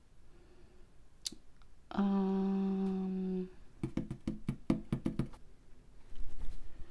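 A person hums one steady note for about a second and a half. A quick run of about ten small knocks follows, then a single thump near the end.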